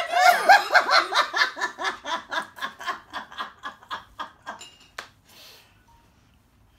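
A woman's hearty, helpless laughter in fast, rhythmic bursts of about five a second, tapering off around four seconds in, followed by a single sharp click.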